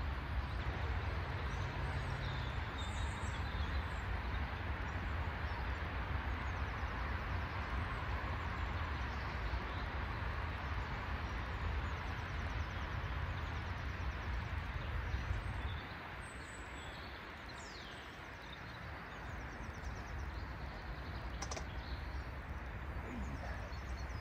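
Steady wind rumble on the microphone that drops away about sixteen seconds in, with birds chirping now and then. A single sharp click sounds near the end.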